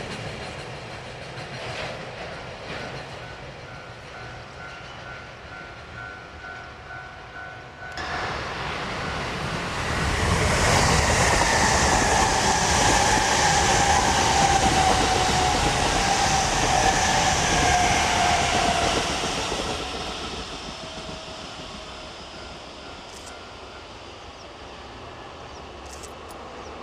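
Electric train running past, quieter at first. About eight seconds in it grows louder, loudest for around ten seconds with a whine that falls in pitch, then fades away.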